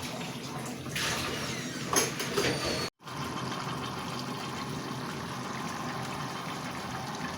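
Chicken in a watery spiced masala bubbling and sizzling over a high flame as the liquid cooks off: a steady hiss. It drops out abruptly for an instant about three seconds in, then carries on.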